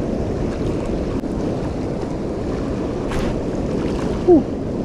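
Fast, turbulent water rushing through a concrete-lined channel, a steady noise. Near the end there is one short, falling squeak.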